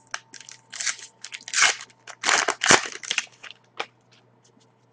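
Foil wrapper of a 2010-11 Panini Pinnacle hockey card pack crinkling and tearing as it is opened by hand: a run of irregular crackly rustles that stops about four seconds in.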